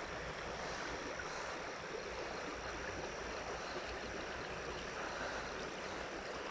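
Shallow creek water flowing, a steady even rush with no breaks.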